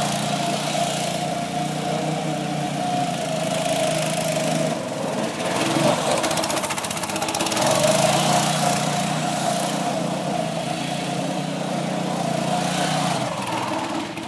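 Small petrol engine of a Gemini off-road buggy running as it is driven. Its steady note breaks up for a couple of seconds around the middle, comes back, and fades away near the end.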